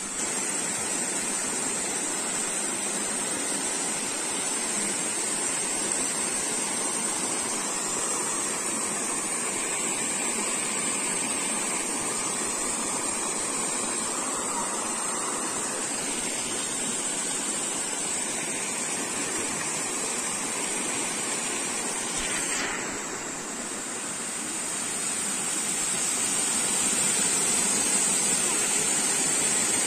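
Waterfall water splashing onto rock and into a pool, a steady rush. It dips briefly about two-thirds of the way in, then grows louder toward the end.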